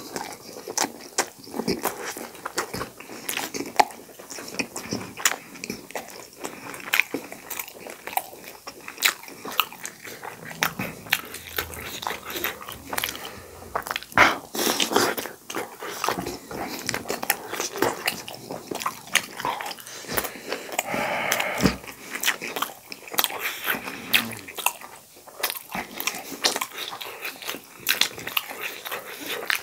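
Close-miked chewing and biting of steamed momos and pani puri: wet mouth smacks and crunching, with many sharp clicks throughout.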